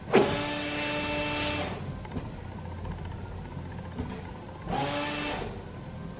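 Jeep Patriot rear washer pump whining in two bursts, a longer one of about a second and a half and a shorter one near the end, spraying fluid through a newly fitted rear washer nozzle as a test.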